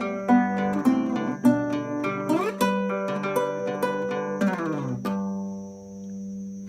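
Guitar played fingerstyle, picked notes closing with a rolled final chord about four and a half seconds in that is left to ring and fade away.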